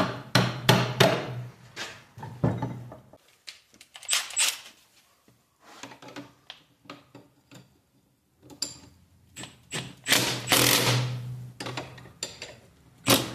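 A hammer tapping a long bar against the shaft of a Ford Ranger T5 manual transmission, several sharp knocks in the first few seconds. About ten seconds in, a Milwaukee Fuel cordless power tool runs in a burst of a second or so on the transmission case.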